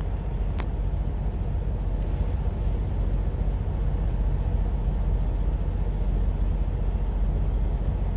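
Steady low rumble of an idling engine, with one light click about half a second in.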